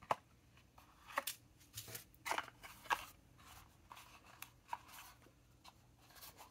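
Nakabayashi Lifestyle Tool pen stand, a folding kraft-paper box, being handled, folded and unfolded: a faint, irregular series of light taps, clicks and rustles of stiff paper.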